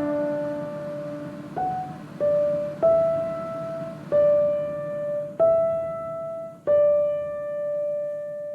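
Background music: a slow piano line of single notes struck about every second or so over a fading chord, the last note left ringing out as the music ends.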